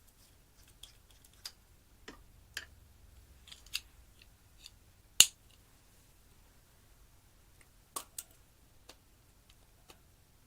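Scattered sharp clicks and snaps of slime being handled, with one much louder snap about five seconds in and a quick pair near eight seconds.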